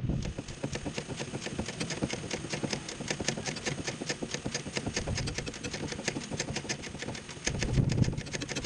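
Small 3/8-inch ratchet clicking in a rapid, even run as it spins a 17 mm suspension bolt loose, with a louder low knock a little before the end.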